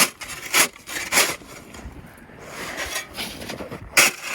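Footsteps crunching in hard, frozen snow, about one step every half second: three steps, a pause, then more steps near the end.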